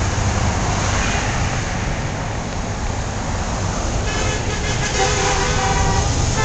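Road traffic passing close by, then from about four seconds in car horns honking in long steady blasts with short breaks, drivers answering a roadside 'honk' banner.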